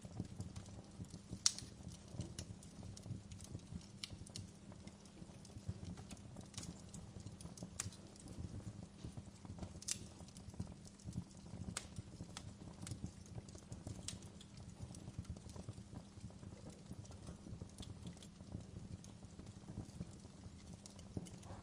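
Wood fire crackling steadily, with irregular sharp pops; the loudest pop comes about a second and a half in.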